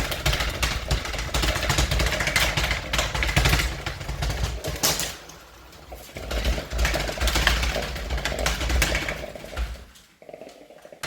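Lasko box fan with two of its blades broken off, running unbalanced on high speed: a loud, rough clattering and knocking as the lopsided rotor shakes the fan. It cuts off near the end and spins down much more quietly.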